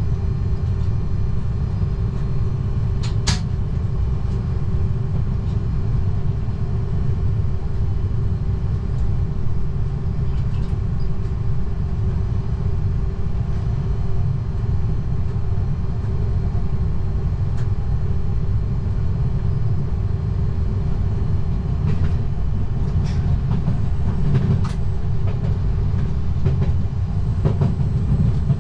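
Z 20500 double-deck electric train running along the line, heard from the driver's cab: a steady low rumble with a steady hum above it and occasional sharp clicks from the wheels.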